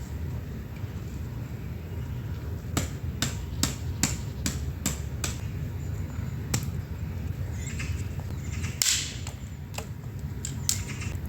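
Sharp knocks in a quick, even run of about two or three a second, then a few scattered knocks and a short scraping rustle, over a steady low rumble.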